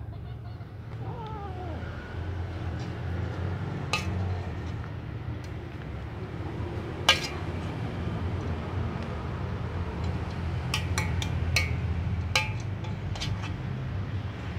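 A kitten and a cat eating side by side from plastic food trays: one meow that falls in pitch about a second in, then scattered sharp clicks and ticks from eating at the trays, over a steady low hum.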